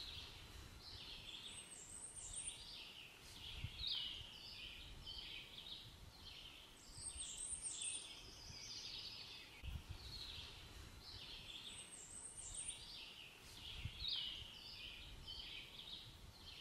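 A songbird singing faintly, repeating the same short song of quick high notes about every three seconds, over a low rumble.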